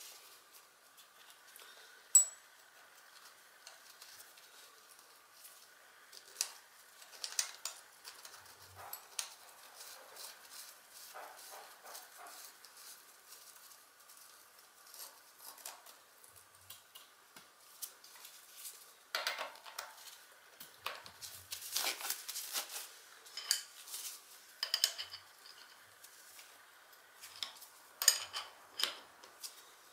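Metal tools clinking and clicking against a bicycle cassette as a lockring tool is seated in it and an adjustable wrench is fitted onto the tool. There is a single sharp click about two seconds in, and the clinking gets busier in the last third.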